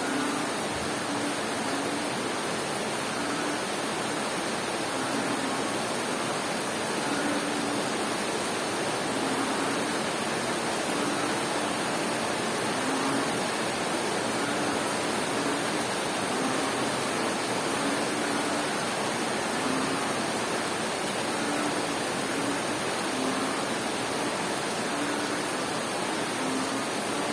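Steady rain falling, with a frog giving short low-pitched calls over it, one every second or two.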